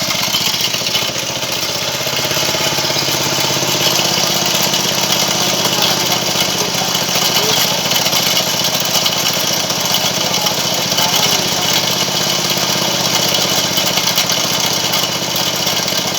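Engine of a water-well drilling rig's winch running steadily at a constant speed, with a hiss of machinery above its low hum.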